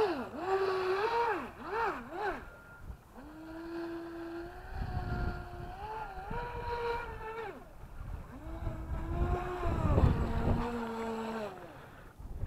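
Atomik Barbwire 17 RC boat's electric motor whining, its pitch jumping up and down in quick throttle blips, then held high for a few seconds at a time, twice. At the loudest moments a rushing hiss of water comes in.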